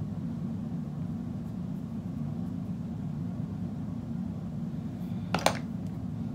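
Steady low background hum, with a quick double click about five seconds in.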